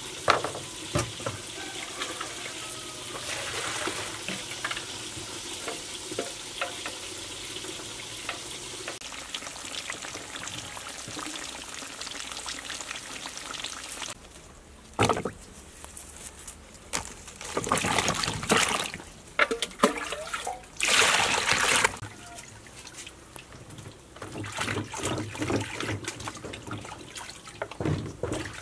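Water splashing and trickling as food is washed by hand in a plastic basin, coming in several separate bursts. A steady hiss runs through the first half.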